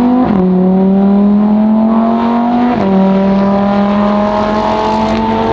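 Lamborghini engine accelerating hard as it drives past, loud, its rising note cut by two quick upshifts, about a third of a second in and just under three seconds in.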